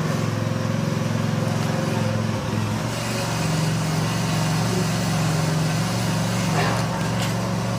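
Allis-Chalmers tractor engine idling steadily, its note shifting slightly about two and a half seconds in.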